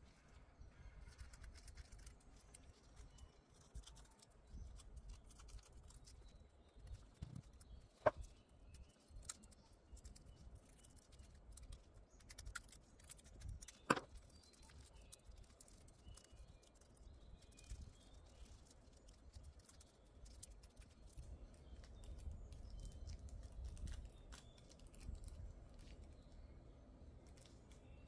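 Faint handling sounds of gloved hands working with nail transfer foil and small tools on a table: scattered light clicks and rustles, with two sharper clicks about eight and fourteen seconds in.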